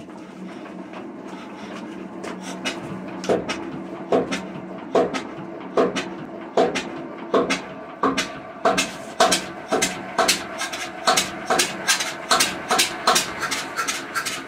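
Witte diesel engine turning over and beginning to fire on its first start after decades of disuse, with sharp regular beats over a steady hum. The beats quicken from about one a second to about two a second partway through as the engine starts to catch.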